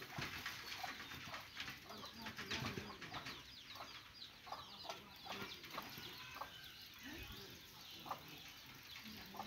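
A flock of chickens clucking and calling, with many short calls overlapping throughout.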